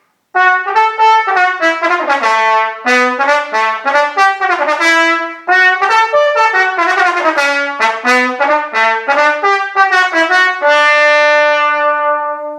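Solo trombone playing a quick melodic phrase of short tongued notes, ending on one long held note that fades out just before the end.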